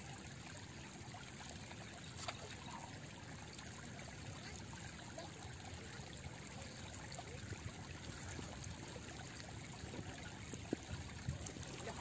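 Steady running of river water along a pebbly bank, with a few short sharp taps near the end.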